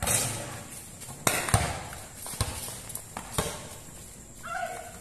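Basketball bouncing on a concrete court, about five sharp, irregular thuds with the loudest about a second and a half in, mixed with players' footsteps. A short shout from a player near the end.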